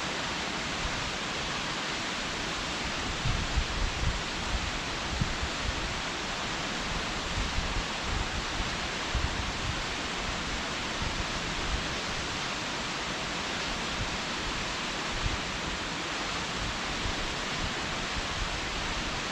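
Waterfall pouring steadily: an even, unbroken rush of falling water. Irregular low thumps rise above it now and then, most of them in the first half.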